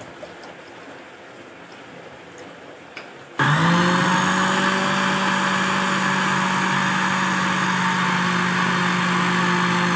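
Electric mixer-grinder starts suddenly a little over three seconds in and then runs steadily with a constant motor hum and whine, blending ground biscuit powder and milk into cake batter. Before it starts there is only a faint, quiet background with a small click.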